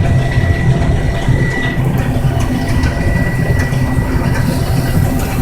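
Case IH 1680 combine running steadily while harvesting milo: a constant low engine hum with a thin, steady high whine over it.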